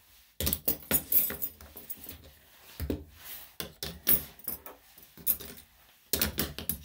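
Metal grooming tools clinking, jangling and knocking as they are handled and put down, in several short clusters, with a few heavier knocks close to the microphone.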